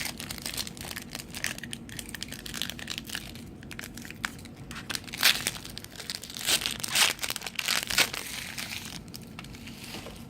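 Crinkling and tearing of a trading card pack's wrapper as it is opened and handled, with several sharper crackles between about five and eight seconds in.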